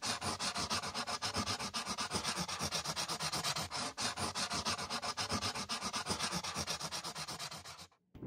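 Fast back-and-forth rubbing strokes, about eight a second, in an even rhythm that stops abruptly near the end.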